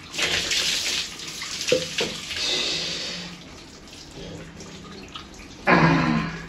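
Water poured over a toddler's soapy head, splashing down and running off as the shampoo lather is rinsed out, in two main pours during the first three seconds. A short voice near the end.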